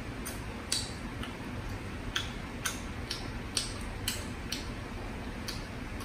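Someone eating shrimp by hand: a run of small sharp clicks, irregular, roughly one every half second, over a steady low background noise.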